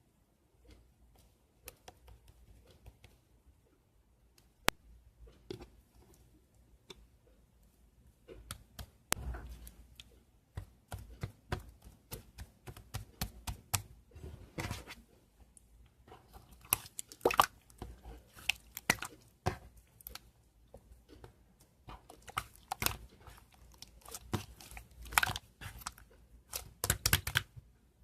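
Two-layer slime being squeezed, poked and pressed by hand, giving crackling, popping clicks. The clicks are sparse at first and come much thicker from about a third of the way in, turning into a quick run of pops near the end.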